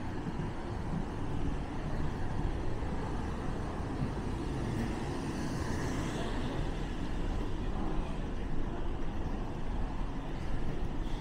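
Steady low rumbling background noise in an airport's underground pedestrian walkway, with a brief rise in hiss about halfway through.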